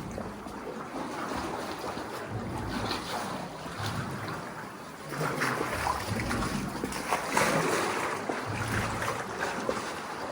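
Water splashing and lapping around a sea canoe, louder from about five seconds in.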